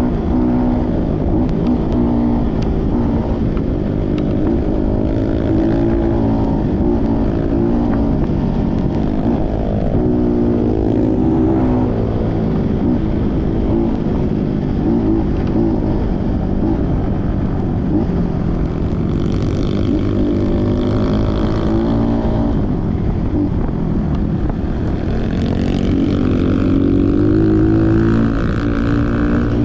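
Trail motorcycle engine running under load, its pitch rising and falling again and again as the throttle is opened and eased off on rough ground.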